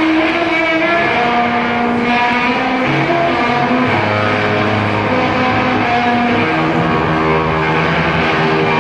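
Loud droning music, many sustained notes layered over each other and shifting in pitch every second or so, with a rough, engine-like timbre.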